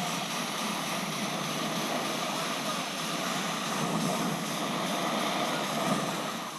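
A steady, even rushing noise with no clear pitch.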